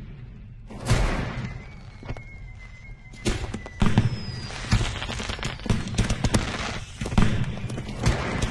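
Fireworks going off in irregular bangs and crackles mixed with music: fairly quiet for the first second, one burst about a second in, then dense bangs from about three seconds on.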